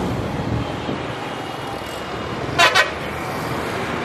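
Road traffic with the engines of passing motorcycles and trucks. A vehicle horn gives two quick toots about two and a half seconds in, the loudest sound here.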